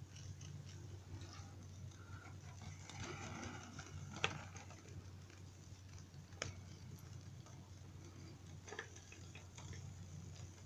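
Faint, irregular ticking of a diaphragm-type pop-pop boat engine running out of the water, heated by a small alcohol burner, with a few sharper single clicks among it over a low steady hum.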